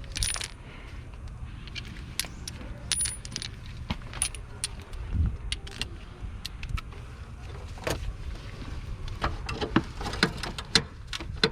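Scattered metallic clicks and clinks of hand tools and metal parts being handled during starter-motor work, coming thicker near the end, over a steady low hum.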